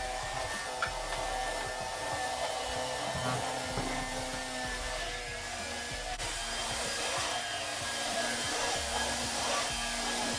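Small electric motor whirring steadily, with soft music underneath.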